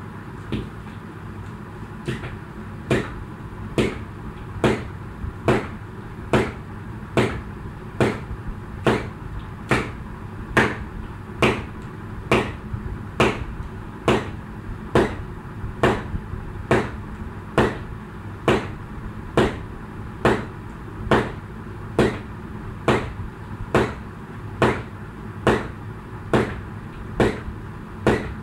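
Jump rope turning in a steady rhythm, the rope slapping the floor a little more than once a second with a sharp smack each turn, over a steady low hum.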